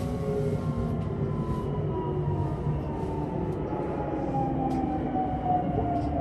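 Electric commuter train heard from inside the car: a steady low rumble from wheels and track, and a motor whine that slides slowly down in pitch as the train slows for the next station.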